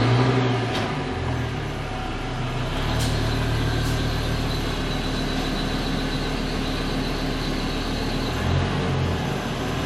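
2007 Chevy Colorado pickup's engine idling steadily, just after being started, with a couple of faint clicks about three and four seconds in.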